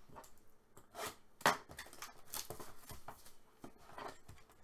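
Trading cards and their cardboard packaging being handled: a run of short rustles and flicks as cards are slid and turned over, with one sharper click about a second and a half in.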